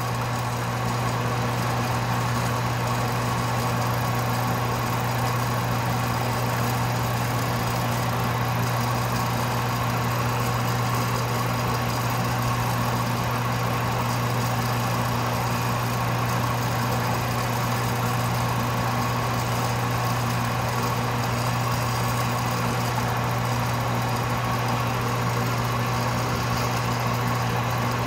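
Metal lathe running at a high spindle speed with a fly cutter spinning in the chuck: a steady motor and drive hum with a fixed whine on top. The fly cutter is taking a very light cut.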